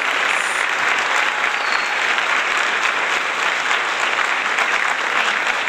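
Audience applause, steady and continuous, greeting a guest's entrance.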